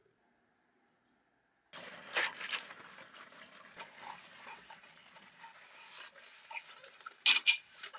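Hand-washing a pasta bowl and spoon with a sponge in a stainless-steel sink: scrubbing with many clinks and knocks of dishware, starting about two seconds in, with a few louder clinks near the end.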